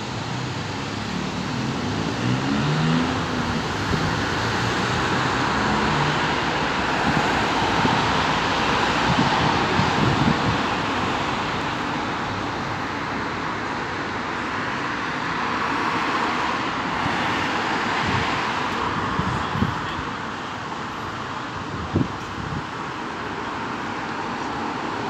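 Road traffic passing on a city street: a steady rush of car tyres and engines that swells as vehicles go by, with two sharp knocks a few seconds before the end.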